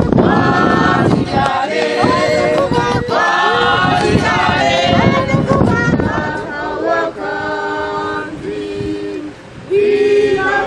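A group of voices singing together in harmony. The voices hold long notes in the second half, with a short lull about nine seconds in before the singing comes back.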